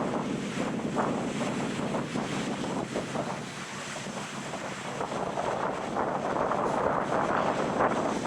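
Ocean waves washing on a sandy beach, with wind buffeting the microphone. The surf eases a few seconds in, then builds again.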